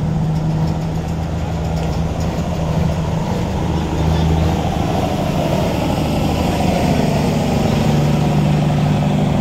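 Heavy diesel engines running steadily, from the truck-mounted crane holding the suspended container and a semi-trailer truck backing in beneath it. The engine note rises slightly about seven seconds in.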